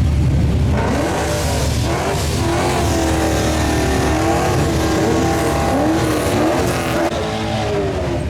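Race car engine accelerating hard on a drag strip, its pitch climbing and dropping repeatedly as it revs through the gears.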